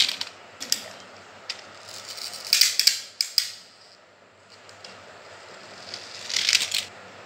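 Pull-back toy car's spring motor: a rapid ratcheting whir of its little gears as the car is dragged back on the tile floor, and again as it is let go and runs across the floor. Brief whirring bursts come at the start, about two and a half seconds in, and about six seconds in.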